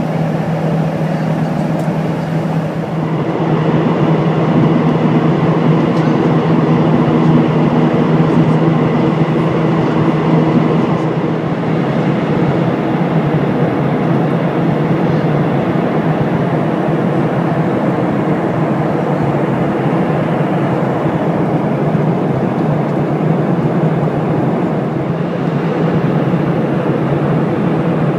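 Steady in-flight cabin noise of a Boeing 737-500: the rush of airflow and the hum of its CFM56-3 turbofan engines as heard inside the cabin. A low droning hum steps up a few seconds in and then fades back into the steady rush after about ten seconds.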